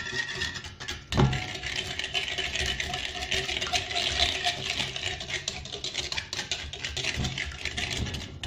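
Wire whisk beating a runny mix of eggs, oil and melted butter fast in an earthenware bowl: a continuous quick wet rattling and scraping of the wires against the bowl, with one louder knock about a second in.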